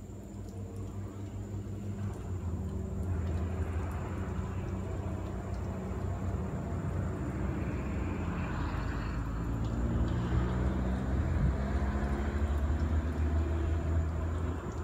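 A motor vehicle running with a steady low hum, growing louder about two seconds in and staying loud.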